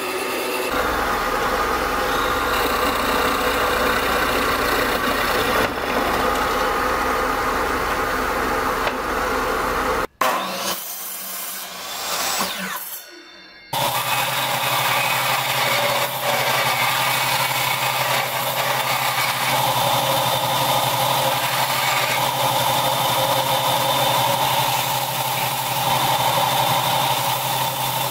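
An electric bandsaw running steadily. After a brief drop-out and a short quieter stretch, a combination belt and disc sander runs steadily while a small wooden piece is pressed against its disc and then its belt.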